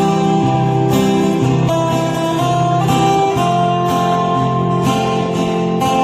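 Live acoustic guitar band playing an instrumental passage: strummed acoustic guitars with a melody of long held notes above them.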